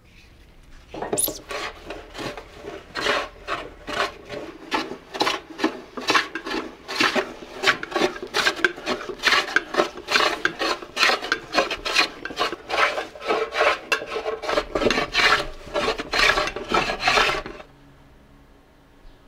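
A hand tool rasping wood in quick repeated strokes, about three a second. The strokes start about a second in and stop near the end.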